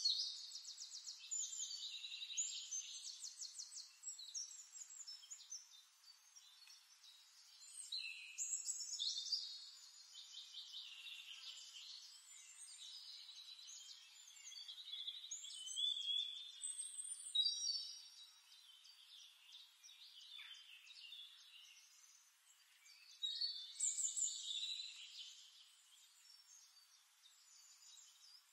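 A bird singing in short bursts of fast, high trills and chirps, one phrase every few seconds.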